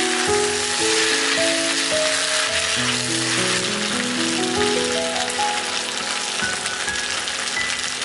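Food frying in oil in a pan, a steady sizzle, with soft melodic background music.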